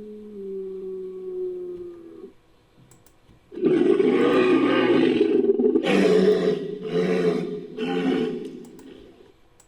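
Designed Edaphosaurus creature call, a sound-effect mix of animal recordings. A drawn-out moan falls slowly in pitch and stops about two seconds in. After a short pause comes a loud rough roar in several pulses that trails off near the end.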